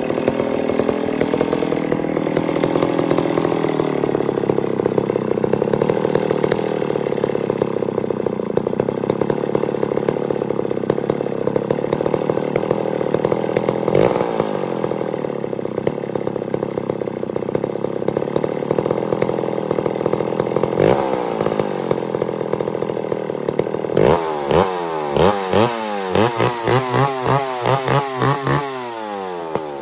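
Old McCulloch 550 two-stroke chainsaw running without cutting, its speed climbing over the first few seconds and then holding steady. Near the end it is blipped on the throttle, rising and falling about twice a second, before it drops back. The saw has recently had carburettor work after carb trouble.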